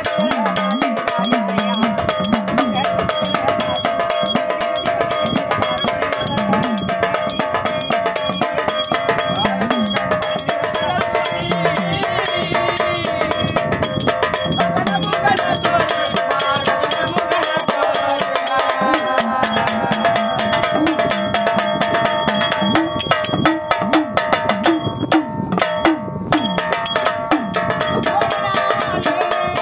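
Marathi devotional folk music of the Vaghya tradition, played with steady drumming and percussion.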